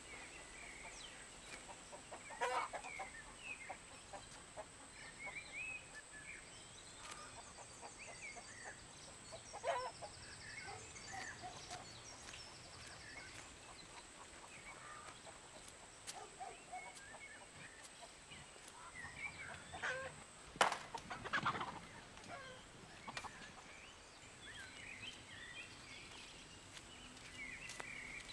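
Chickens clucking now and then, loudest about two seconds in, around ten seconds in and again around twenty seconds in, over scattered chirps of small birds and a faint steady high whine.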